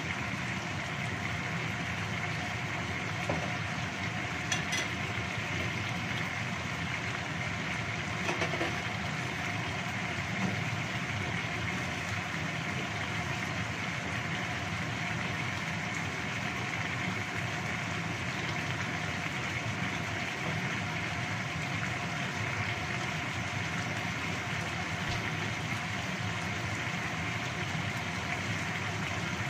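Chicken in sweet soy sauce simmering in a wok over a gas burner: a steady bubbling and hiss as the liquid cooks down, with a few faint clicks.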